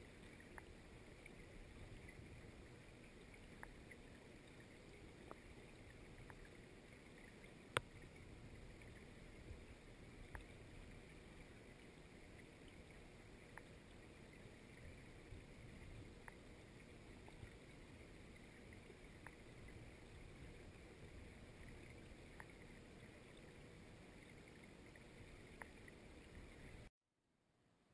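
Faint, muffled underwater rumble of river current heard through a submerged waterproof camera housing, with scattered faint ticks and one sharper click about eight seconds in. The sound cuts off abruptly shortly before the end.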